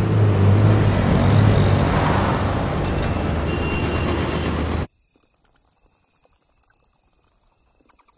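Dense night-time city traffic: vehicle engines and road noise with a low steady hum, and a short high ring about three seconds in. It cuts off abruptly about five seconds in, leaving faint, rapid chirping of crickets.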